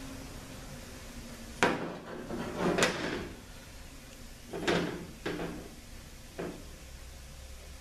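4L80E overdrive clutch housing and piston parts knocked and set down on a steel workbench as they are assembled: a sharp knock, a short clatter, then three more knocks a second or so apart.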